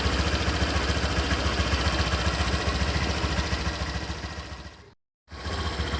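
Honda Vario 125 scooter's single-cylinder engine idling with a rough growl (ngorok) that extra rubber shims under the radiator cover do not cure; the owner suspects the radiator fan rubbing its cover. The sound fades about four seconds in and cuts out briefly near the end.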